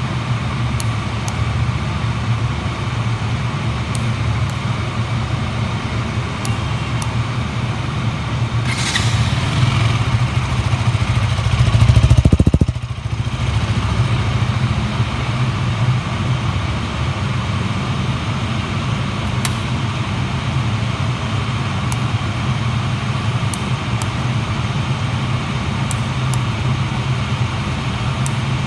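KTM 200's single-cylinder engine idling steadily through its stock exhaust. About twelve seconds in there is one short rev that drops suddenly back to idle.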